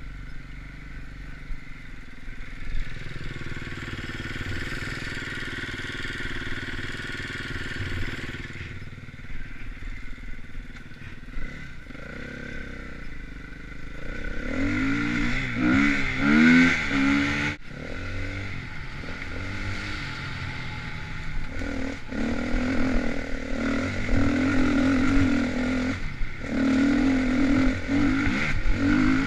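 KTM enduro dirt bike engine running under a rider on a race course: fairly steady and softer at first, then from about halfway revving hard, the pitch rising and falling through throttle changes and gear shifts, with short breaks off the throttle.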